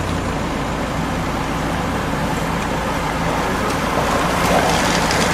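Steady rushing road noise as a bunch of racing bicycles sweeps past, growing louder about four seconds in as the riders round the corner close by.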